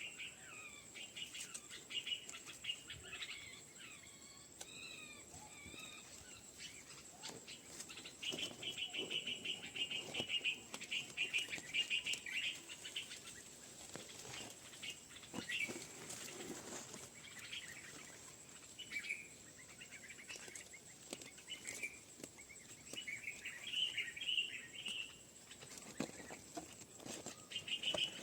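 Baby birds in the nest chirping: fast trains of high, repeated chirps in bouts that start and stop, with a steady high-pitched tone underneath.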